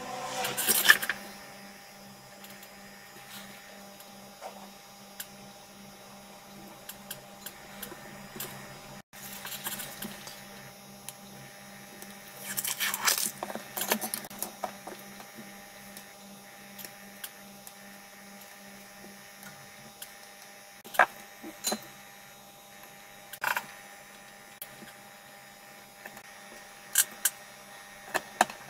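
Hands handling wires, a circuit board and small tools on a silicone work mat: two brief rustling scrapes, one near the start and one about halfway, then scattered light clicks and taps of small parts and a screwdriver. A faint steady hum runs underneath.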